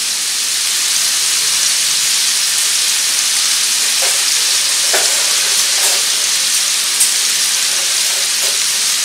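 Ground beef sizzling steadily in hot fat as it browns in a frying pan, with a few faint ticks and pops along the way.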